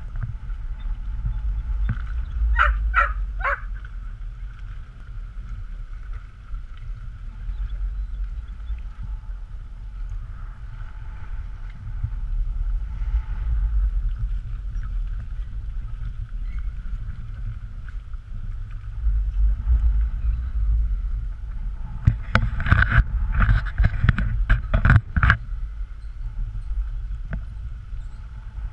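Wind rumbling on an action camera's microphone, with a faint steady hum underneath. A quick run of three sharp sounds comes about three seconds in, and a cluster of sharp knocks near the end.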